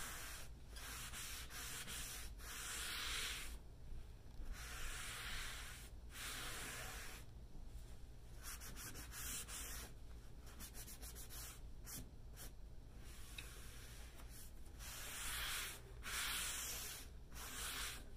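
A rag wiping back and forth along a buffet top, lifting off excess oil-based wood stain along the grain. The rubbing comes in repeated strokes of about a second each, with short pauses between them.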